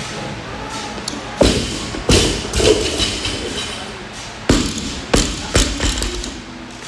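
A loaded 185 lb barbell with bumper plates dropped onto rubber gym flooring after a squat clean: a heavy thud about two seconds in, with a bounce or two around it. A second group of thuds follows about two seconds later.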